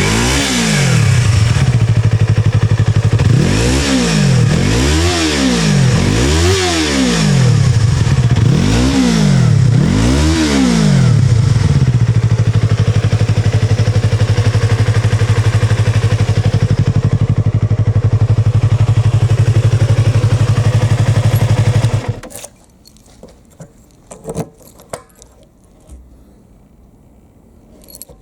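Yamaha YZF-R25's parallel-twin engine, heard through a Yoshimura Cyclone silencer, revved in short blips about six times, then idling steadily before it is switched off suddenly about 22 seconds in. A few light clicks follow.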